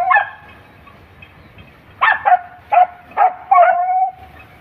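Hunting dog yelping on the chase: one short cry at the start, then a quick run of about five high yelps about two seconds in, the last one drawn out into a longer held note.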